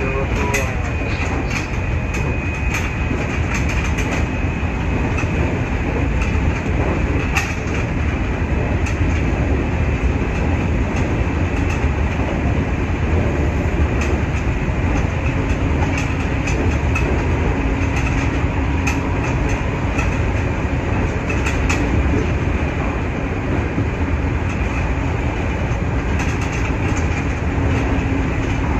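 Nankai 8300-series electric train running at speed, heard from on board: a steady rumble of wheels on rail, with sharp clicks of the wheels over rail joints now and then. A faint steady hum grows near the end.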